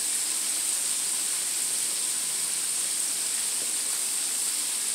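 Breaded pig feet deep-frying in a wok of hot oil: a steady, even sizzle with no pops.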